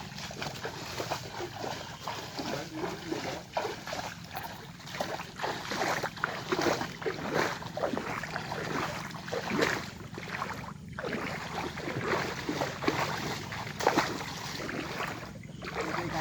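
Irregular splashing and sloshing of water, with wind noise on the microphone.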